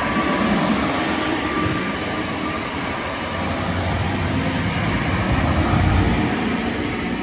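GWR Hitachi Class 800 bi-mode train passing close by, a steady rumble of wheels on the rails with faint high wheel squeal.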